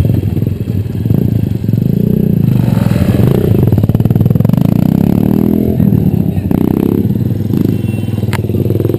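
Motorcycle engine revving hard, its pitch climbing and dropping several times as the bike accelerates away.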